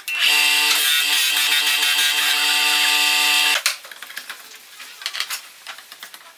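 Electric motor of a homemade disc sander running while a piece of wood is held against the sanding disc: a steady hum with a sanding hiss that stops abruptly about three and a half seconds in. After it come faint clicks as a T-handle hex key is fitted to the bolt at the disc's centre.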